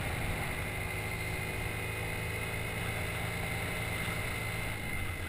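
Motor scooter's small engine running steadily at cruising speed, a constant drone with a faint high whine over road and wind noise.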